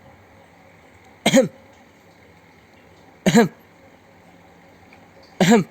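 Three short, deliberate coughs, each a brief voiced "ahem", about two seconds apart.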